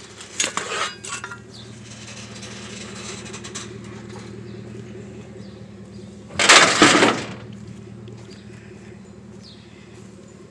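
Black metal frame clattering as it is handled, then a loud metallic crash about six and a half seconds in as it is dropped into a pickup truck bed holding other scrap.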